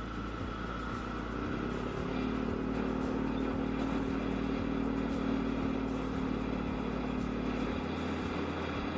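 Yamaha Aerox scooter engine running while riding. The engine note picks up about a second and a half in, holds steady, and eases off near the end.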